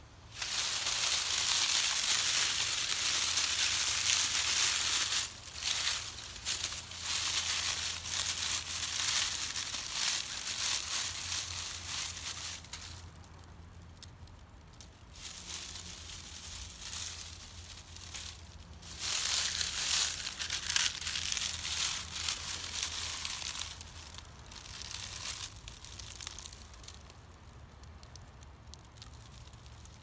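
Dry leaves being gathered and crushed in the hands, crunching and crinkling in long bursts, loudest over the first half and fading to lighter rustles near the end.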